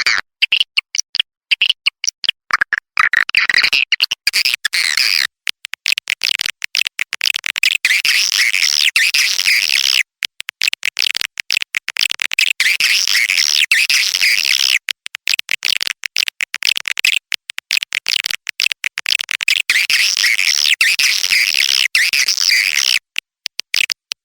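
Recorded swiftlet calls played as a swiftlet-house lure call, meant to draw nesting swiftlets. It is a dense stream of high chirping twitters, cut by many abrupt short gaps.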